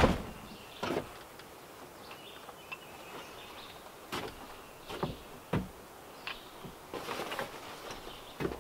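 A wooden cabin door banging shut, followed by scattered footsteps and knocks on plank porch boards. Near the end comes a rustle of heavy fabric as chainsaw chaps are handled.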